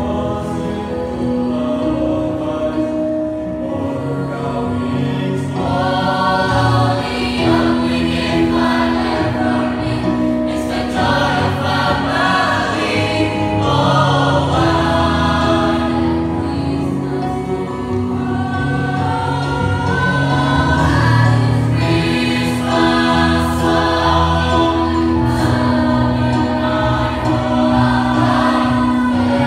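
Mixed choir of girls and boys singing a sacred song together in harmony, with several voices holding different notes at once.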